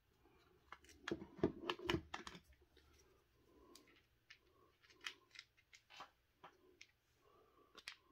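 Clicking and rattling of small hard parts and tools being handled on a workbench while an RC car transmission is taken apart. There is a quick run of clatters about a second in, then scattered single clicks.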